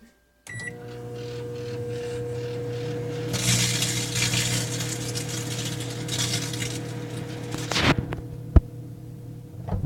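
Microwave oven starting with a short beep and running with a steady hum. From about three seconds in, a chip bag inside crackles and crinkles loudly for about four seconds as it heats. Then come two sharp knocks, and the hum cuts off near the end.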